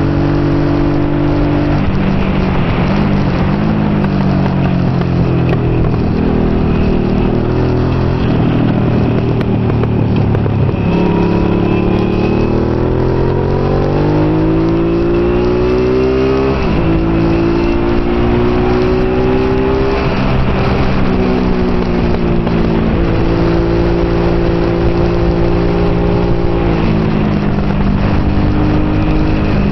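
Honda NT650 Hawk GT's V-twin engine at race pace, heard from onboard, with a rush of wind noise. The revs rise and fall through the lap, climbing steadily for several seconds past the middle and dropping sharply at a gear change, with further drops and pick-ups later.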